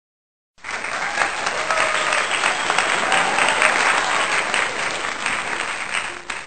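Applause from a crowd, many hands clapping densely; it starts suddenly about half a second in and dips near the end before cutting off.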